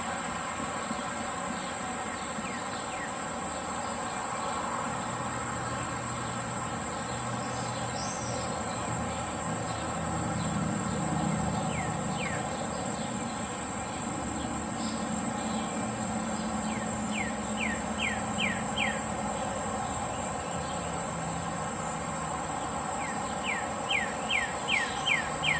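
Garden ambience: a steady, high-pitched drone of insects, with a bird calling two quick runs of five or six descending notes, about two-thirds of the way through and again near the end, over a low hum.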